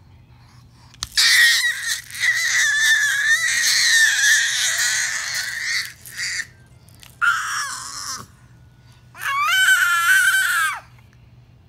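A baby's high-pitched squeals and screeches: one long squeal of about five seconds, then three shorter ones.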